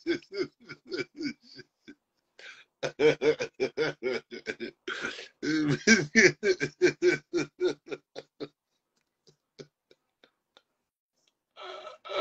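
A man laughing hard: long runs of rapid, pitched 'ha' pulses, about five a second, with a short break about two seconds in. They die away past the middle, and a breathy gasp for air comes near the end.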